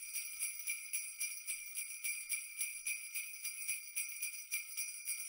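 Jingle bells shaken in a steady rhythm, about four shakes a second.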